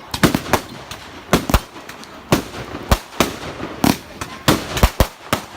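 Fireworks going off: a dozen or more sharp bangs at irregular intervals, a few a second.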